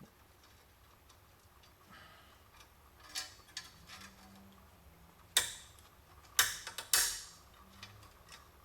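Small metal parts and hand tools clicking and clinking while a window trim clip is worked onto a stud on a scrap steel panel: a few light clicks, then three louder sharp metallic clacks in the second half, each ringing briefly.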